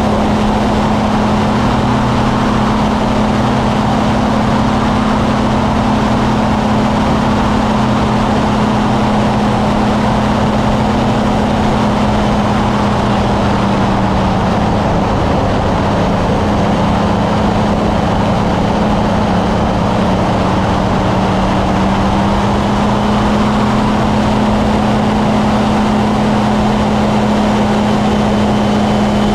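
Kolb Firefly ultralight's engine and propeller running steadily at high power, heard from a camera mounted on the aircraft with air rushing past the microphone. The engine note drops slightly about halfway through and comes back up near the end.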